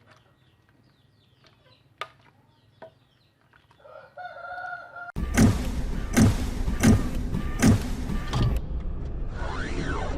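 A rooster crows about four seconds in over faint bird chirps. About five seconds in it cuts abruptly to loud music with a strong regular beat, and gliding tones come near the end.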